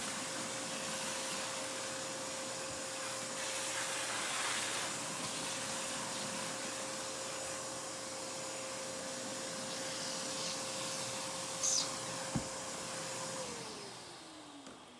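Vacuum cleaner running steadily, sucking up cutting debris, then switched off near the end, its motor whine falling as it winds down. There are two brief knocks shortly before it stops.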